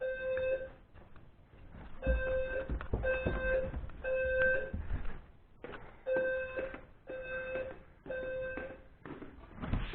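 Fire alarm sounders of a Notifier NFM-320C system in alarm, sounding the temporal-three evacuation pattern: three short beeps, a pause, three more, repeating. The alarm was set off by a heat detector in the attic storage, which the owner suspects is faulty. A few low knocks sound between the beeps.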